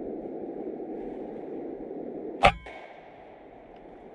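RTI Arms Prophet .22 PCP air rifle firing a single shot about two and a half seconds in: a sharp crack with a short metallic ring after it. A steady background hiss runs underneath and drops off after the shot.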